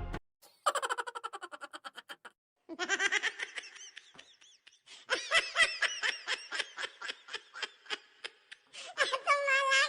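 Several laughter sound effects, one after another with short gaps between them. The first is a quick laugh that falls in pitch and fades, and the later ones are longer fits of laughing.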